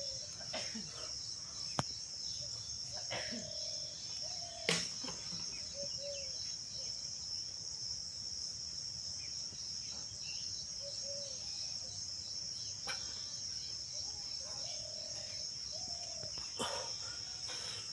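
Steady, high-pitched chorus of insects chirping, with a few faint short calls and a sharp click about five seconds in.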